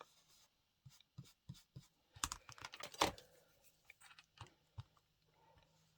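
A stamp being inked: faint, irregular light taps and clicks of the stamp against the ink pad, the loudest about three seconds in.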